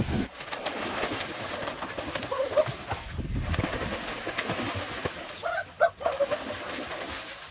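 A bird calling in short pitched calls, twice in a few seconds, over steady outdoor background noise with scattered small knocks.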